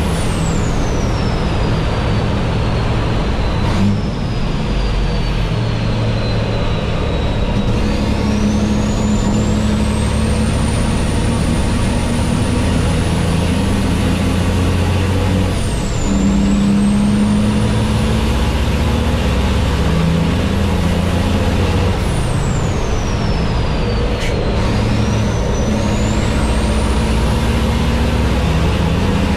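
MAN race truck's diesel engine running hard at speed, heard loud from inside the cab. A high whine falls and climbs again several times over the engine noise, with brief dips in the sound a few times.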